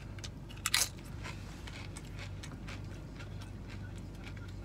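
Close-miked chewing with small wet mouth clicks and smacks, and a sharper double click a little under a second in. A steady low hum sits under it.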